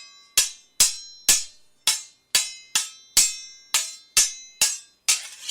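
Swords clashing in a duel, blade striking blade: a quick, irregular run of about a dozen metallic clangs, roughly two a second, each ringing briefly before the next. Near the end one hit is longer and noisier than the rest.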